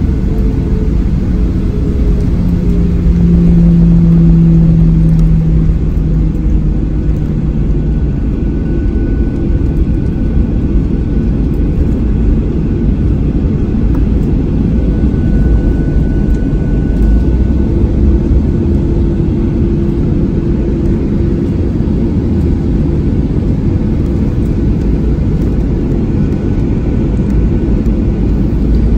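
Boeing 737-900ER's CFM56-7B turbofan engines running at taxi thrust, heard inside the cabin beside the wing as a loud, steady low rumble. A humming engine tone slides down in pitch over the first several seconds.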